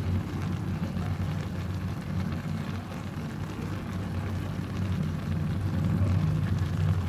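Sliced ash gourd cooking in a wok on the stove: a steady low rumble with faint sizzling, while a plastic spoon stirs the gourd.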